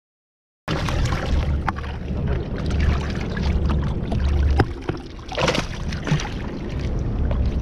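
After a moment of silence, a steady rush of water and wind noise on a small fishing boat, with low rumbling and a few light knocks.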